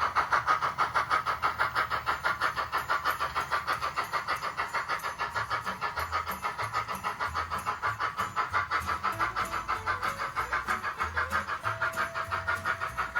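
Model train running on the layout, with an even, rhythmic beat of about six pulses a second.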